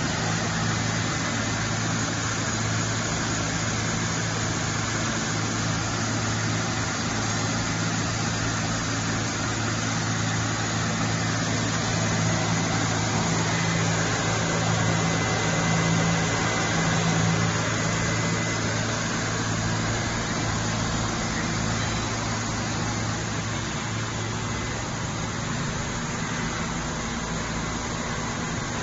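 Two-colour flexographic printing machine running steadily, film feeding through its rollers: a constant mechanical hum with a faint high whine.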